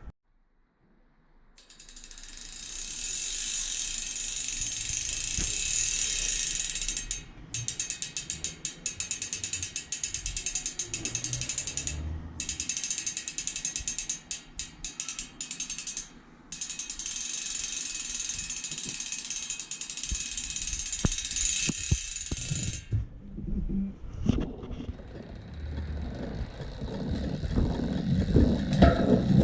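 Hope Pro 4 rear hub freewheeling: its four pawls clicking over the ratchet ring give a loud, high-pitched buzz as the wheel spins freely. The buzz breaks into rapid clicking that stops briefly a couple of times, then stops for good about 23 seconds in, followed by a few low knocks.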